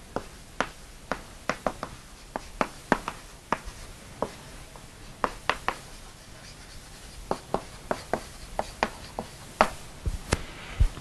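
Chalk writing on a blackboard: a run of sharp, irregular taps and short scratches as letters are written by hand.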